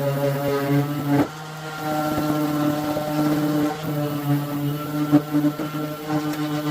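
Power sander running against a car's painted body panel, a steady hum that drops off briefly about a second in and then picks back up.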